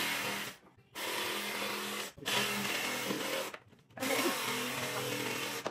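Cordless jigsaw cutting through a sheet of plasterboard, its motor and blade buzzing steadily in four stretches broken by short pauses.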